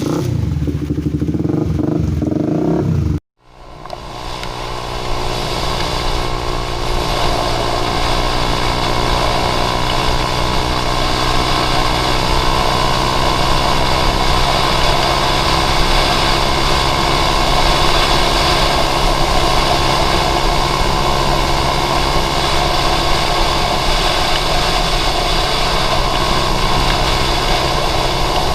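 Honda CB150R's single-cylinder engine running at a steady speed under a constant rush of wind and road noise. The sound cuts out abruptly about three seconds in and then returns, the engine holding steady from there.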